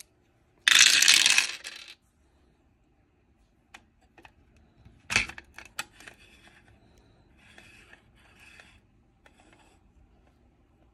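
A handful of plastic dice dropped into a 3D-printed PLA dice tower, rattling down the inner spiral stairs for about a second and spilling into the tray. Several separate clicks follow a few seconds later, the loudest about five seconds in, then faint scraping.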